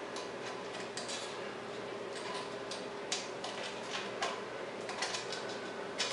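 Stiff coat-hanger wire clicking and scraping against the porcelain as it is poked into a toilet bowl's clogged rim holes to clear them: scattered light clicks, about one a second, over a faint steady hum.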